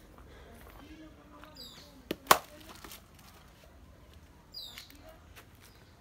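Two sharp knocks in quick succession about two seconds in, the second much louder, with a brief ring after it. A bird gives a high call that falls in pitch, twice.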